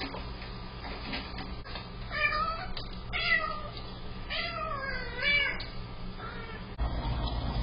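Domestic cat meowing, a few drawn-out meows in a row, the last one the longest.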